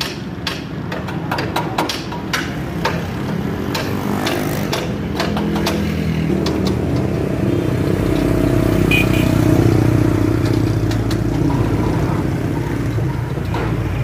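Street traffic with a motor vehicle's engine passing close, growing louder and loudest a little past the middle. Sharp metal clinks from steel rebar being handled sound in the first few seconds.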